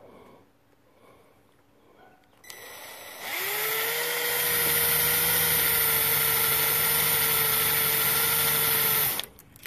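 Cordless impact driver spinning up about three seconds in and running with a steady whine for about six seconds, drilling a bit into an old rubber-and-steel front crankshaft seal so it can be pulled out. It stops shortly before the end.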